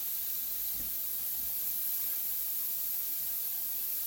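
Beef pieces searing in smoking-hot nonstick frying pans: a steady sizzle as the meat browns.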